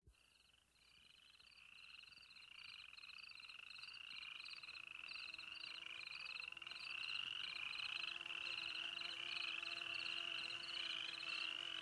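A chorus of high, rhythmic chirping animal calls, about two short trilled calls a second. It fades in about two seconds in and grows steadily louder, with faint steady lower tones joining partway through.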